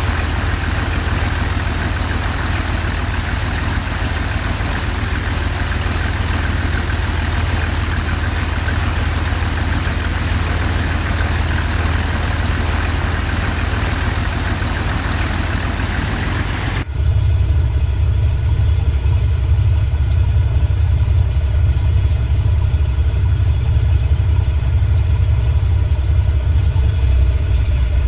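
An engine running steadily. About seventeen seconds in the sound changes abruptly: the hiss falls away and it becomes louder and deeper, then runs on steadily.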